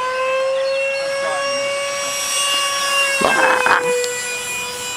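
Electric RC model plane's motor whining steadily overhead, its pitch easing down a little about four seconds in, with a brief rustling burst just before.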